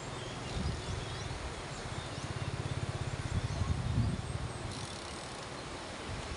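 Outdoor ambience: wind buffeting the microphone in low gusts over a steady hiss, with faint high chirping. About two seconds in, a small motorcycle engine putters by with a fast regular beat for a second or so.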